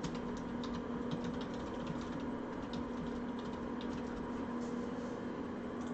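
Computer keyboard being typed on, irregular key clicks over a steady electrical hum.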